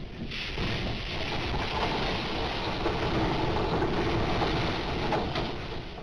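Seawater from a large wave surging through a gate and washing across a patio: a loud, steady rush of water that starts suddenly and eases off near the end.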